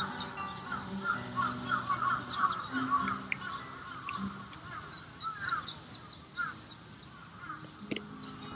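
Acoustic guitar played softly, slow single notes, under many birds chirping and calling; the bird calls are dense at first and thin out about halfway through.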